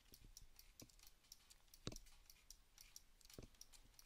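Faint, irregular clicking of a computer mouse and keyboard, several small clicks a second with a few stronger knocks among them.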